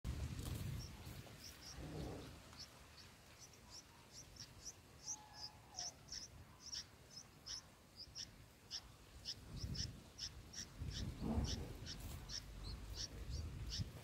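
Bulbul nestlings giving short, high begging chirps about twice a second as a parent arrives to feed them. A few low rumbles are heard as well.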